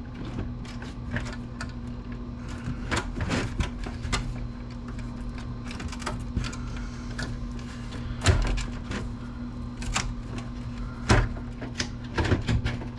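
Irregular clicks, snaps and knocks of wiring and plastic parts being pulled and cut inside a desktop computer case, the sharpest about 8, 11 and 12 seconds in, over a steady low hum.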